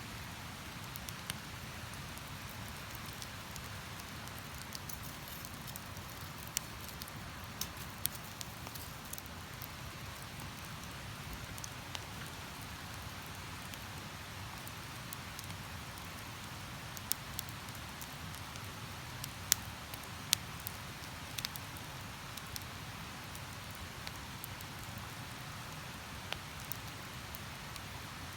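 Wood campfire crackling, with scattered sharp pops standing out from it, over a steady rushing background.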